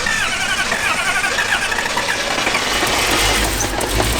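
Vehicle driving with its engine running under way and a steady rush of road and wind noise. Rows of high chirping squeaks sound over the first two seconds, and a deep engine rumble builds about three seconds in. The engine has developed a knock whenever it is given gas.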